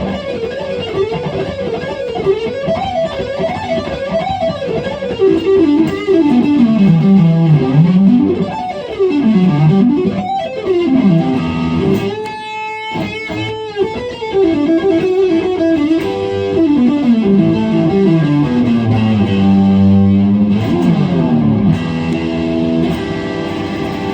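Fender Stratocaster electric guitar through a Marshall amplifier, playing fast runs that sweep up and down in pitch, broken by a couple of short gaps, with longer held notes near the end.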